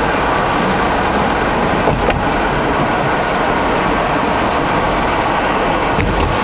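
Car driving along: steady road and tyre noise, with a brief knock about two seconds in and another near the end.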